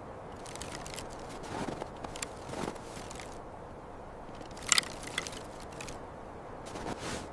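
Irregular soft crackles and clicks over a steady low hiss, with a sharper cluster of clicks a little past the middle.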